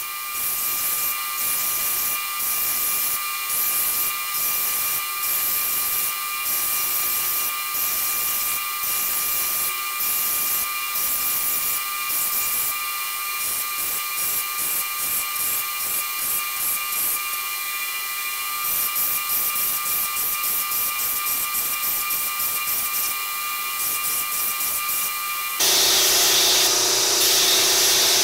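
KMG belt grinder running with a steady whine while a steel ball peen hammer head is ground against the moving belt, the grinding hiss rising and falling as the piece is pressed on and eased off. Near the end the sound jumps abruptly louder and coarser.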